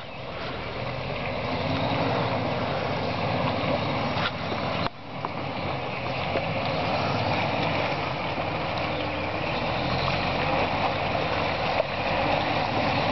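Jeep Wrangler engine running at low revs as it crawls through a muddy off-road trail, growing louder over the first couple of seconds as it comes closer, with a brief sudden dip about five seconds in.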